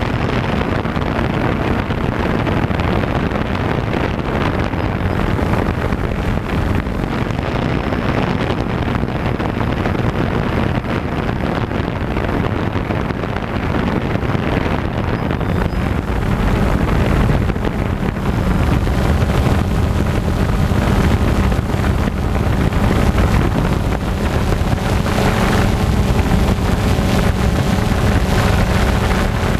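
Quadcopter drone's motors and propellers running steadily, heard through its onboard camera microphone with wind rushing over it. A faint steady motor hum comes through more clearly in the second half.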